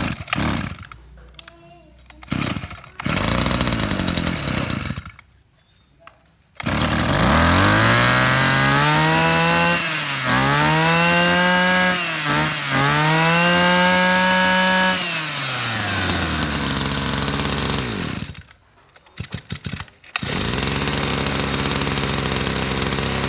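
Maruyama 23cc two-stroke brush cutter engine starting about six and a half seconds in. It is revved up high and held on the throttle with two short dips, then drops back to a lower steady running speed.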